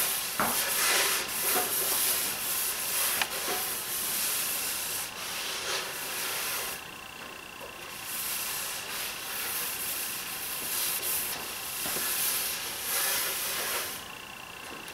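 A damp rag wiped back and forth over a scraped, finished plywood cabinet top to clear off the scraping dust, a rubbing hiss that swells and fades with each stroke.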